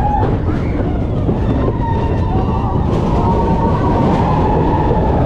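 Mine-train roller coaster cars running along the track with a loud, steady rumble, and a wavering high tone over it from about a second in.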